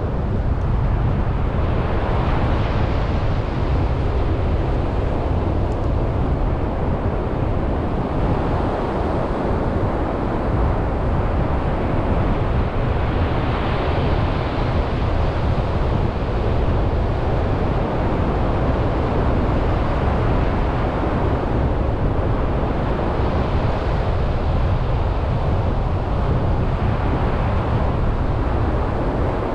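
Wind rumbling on the microphone over surf breaking on the shore, with the wash of the waves swelling up every several seconds.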